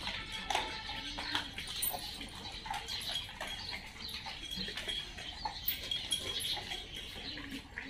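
Several dogs moving about on a tiled floor: scattered light clicks and taps of claws and paws on the tiles, with no barking.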